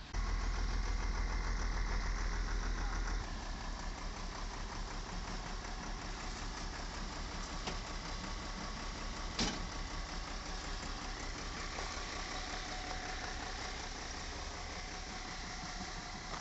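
Tata tipper truck's diesel engine idling with a steady low rumble, heavier for the first three seconds and then settling a little quieter. One sharp knock sounds about nine seconds in.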